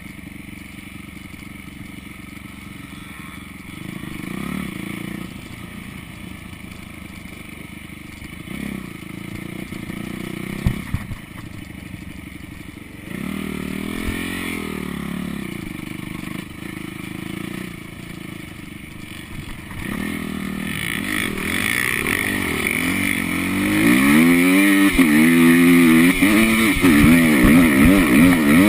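Dirt bike engine running as the bike is ridden over sand, its revs rising and falling with the throttle. A sharp knock comes about a third of the way in, and the engine gets louder near the end with quick rises and falls in pitch.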